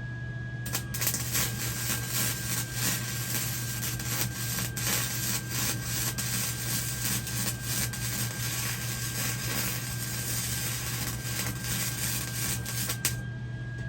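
Electric arc welding on steel: a continuous crackling sizzle that starts about a second in and cuts off sharply near the end, over a steady low hum.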